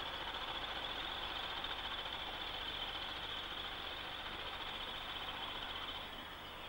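Pair of Class 20 diesel locomotives with English Electric 8SVT engines running, a steady high turbocharger whistle over the engine noise, fading as they draw away. The sound steps down quieter about six seconds in.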